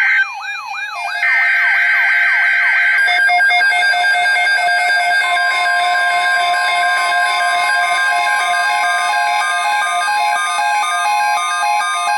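Emergency Alert System weather radio alarm: rapid siren-like sweeping wails and buzzy digital header bursts, layered with alternating two-pitch beeps. About five seconds in, a steady single-pitch weather radio alert tone joins and holds.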